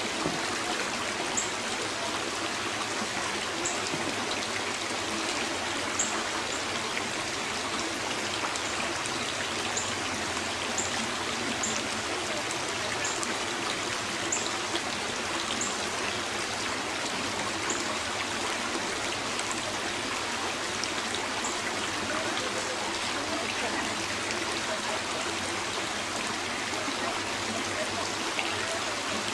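Shallow river water rippling steadily over a rocky riffle.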